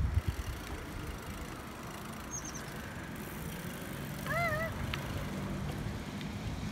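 Street ambience with the low steady hum of a motor vehicle, which grows louder about four seconds in. A bird gives a brief high chirp about two seconds in, and a short wavering animal call sounds a little after four seconds. Wind buffets the microphone at the start.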